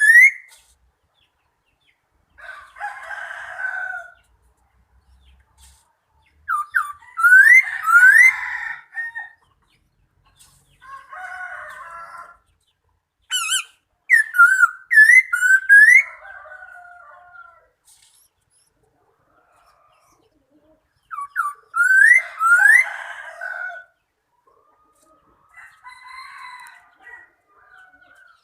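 Bird calling in repeated bouts of loud, sweeping whistled notes that rise and fall, with quieter, rougher chatter between the bouts and short silences in the gaps.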